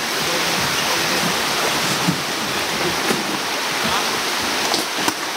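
Fast-flowing river water rushing steadily over a shallow, rippling stretch, with a few light knocks.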